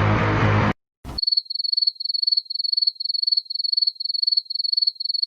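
Crickets-chirping sound effect, the stock meme cue for an awkward silence. It is a steady high chirping in quick trills of about two a second, and it starts about a second in, just after a burst of music cuts off.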